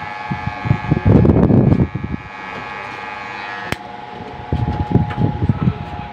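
Electric hair clipper running with a steady hum. Loud low rumbling noises come about a second in and again around five seconds in, with a single sharp click in between.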